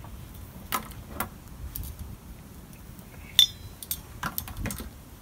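Metal clicks and clinks of a high-pressure air regulator assembly with brass fittings being handled and set down, a few separate knocks with one sharp ringing clink about three and a half seconds in.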